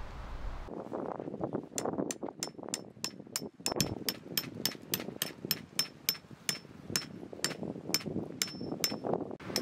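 A tent peg being driven into the ground with a peg hammer: a long run of steady, evenly spaced blows, about three a second, each with a short ringing note.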